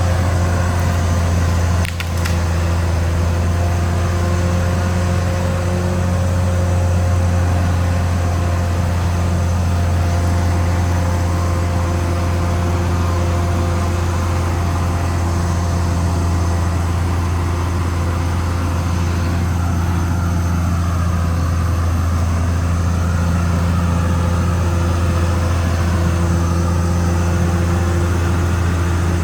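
Caterpillar D6R XL bulldozer's diesel engine running steadily, a deep even drone, with a brief drop in level about two seconds in.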